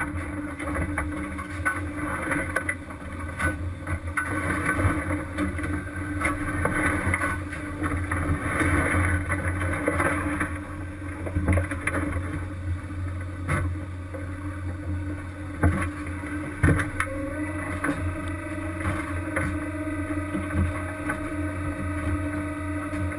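Fishing vessel's engine and machinery running steadily, with a few sharp knocks, the loudest a little past the middle.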